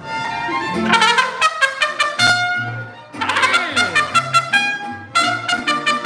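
Live mariachi band playing, the trumpet leading over violin and low bass notes. About three seconds in the music dips, then the trumpet plays a run of short, quick notes.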